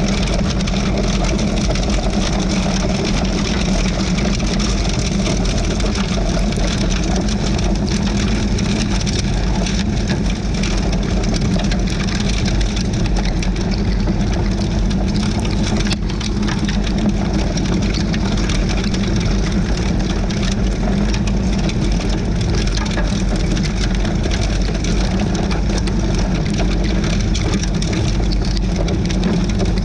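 Kubota LX2980 front-mount snow blower's auger and fan churning through snow, over the steady running of the Kubota LX2610 tractor's three-cylinder diesel engine under load.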